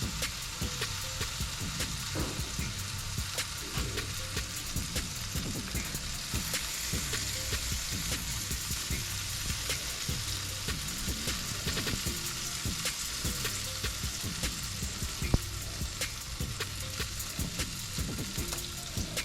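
Chicken leg quarters sizzling and crackling on a hot charcoal grill grate, with a single sharp tap about fifteen seconds in.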